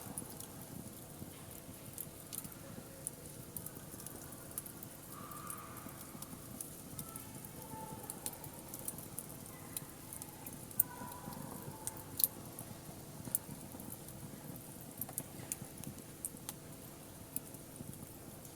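Wood fire burning in a fire pit, crackling with irregular sharp pops and snaps, the two loudest about eleven and twelve seconds in.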